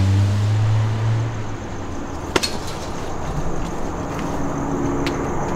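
Car engine running with a steady low hum that fades away about a second and a half in, as the car drives off. A single sharp click comes a little over two seconds in.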